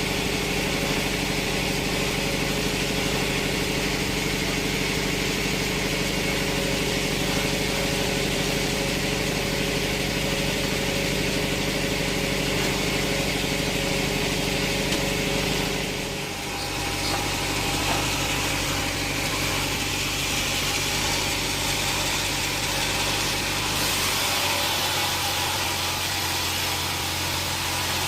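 A sawmill's engine running steadily. About halfway through its note dips briefly and settles to a lower, steady pitch.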